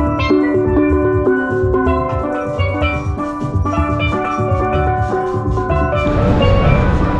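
Steel drum music: bright struck steel pan notes over a steady drum beat. The music stops about six seconds in, giving way to the steady noise of the crowd.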